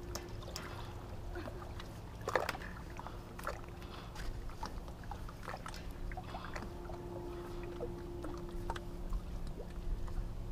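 River water lapping and trickling against shoreline rocks close to the microphone, with many small splashy ticks over a low rumble and a faint steady hum. One sharper knock about two seconds in.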